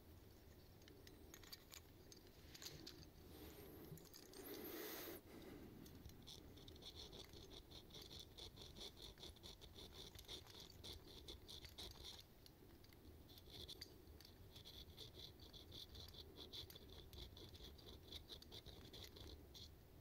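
Faint rasping of a small hook sharpener on a fishing lure's treble hook points, in two long runs of rapid back-and-forth strokes with a short pause between. A brief rustle of handling comes about five seconds in.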